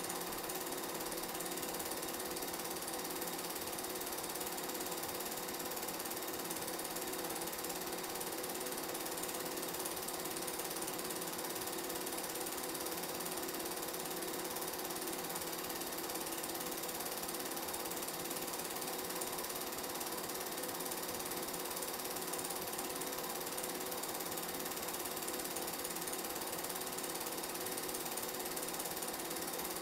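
Film projector running with a steady mechanical clatter of its film-advance mechanism, the only sound on an otherwise silent old game film.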